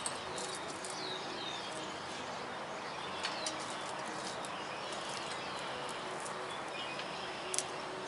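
Birds chirping outdoors, short downward-sweeping calls every second or so over a steady background hiss, with a couple of light clicks about three seconds in and near the end.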